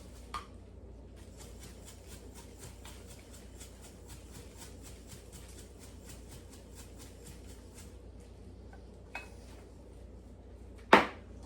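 Pepper being dispensed into a marinade: a steady run of quick, dry, scratchy clicks, about five a second, lasting several seconds. Near the end there is one loud clunk, like a container or utensil set down.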